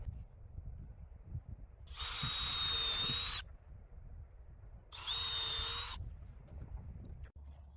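Power drill running in two bursts, about a second and a half and then about a second long, each with a steady motor whine.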